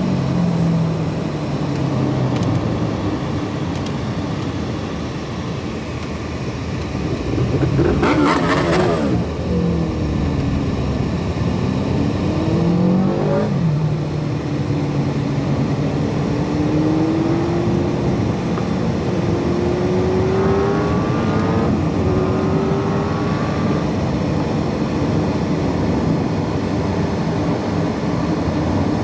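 Car driving at road speed, heard from inside the cabin: steady tyre and road noise under an engine note that drops early on and rises from about 17 to 22 seconds in as the car speeds up. Another vehicle sweeps past about 8 seconds in, and a motorcycle overtakes close by about 13 seconds in.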